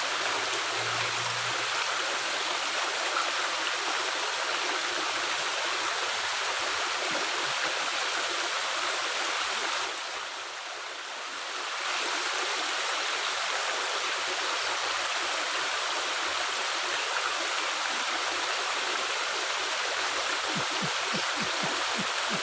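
Steady rush of flowing water at a culvert, dipping briefly about ten seconds in before returning.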